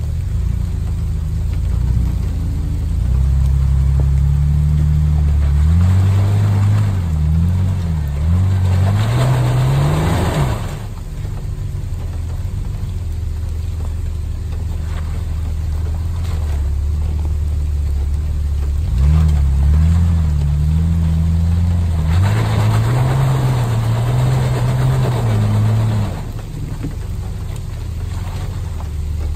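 Jeep Wrangler engine revving under load while climbing a steep rocky slope. It comes in two long stretches of wavering throttle, each with a rasping rush of noise at its peak, and drops back to a steady lower run between them and near the end.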